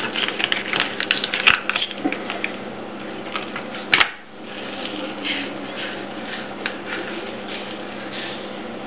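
Kitchen knife slicing a raw catfish fillet on a plastic cutting board: a run of quick clicks and scrapes, with two sharper knocks about a second and a half and four seconds in, then scattered ticks.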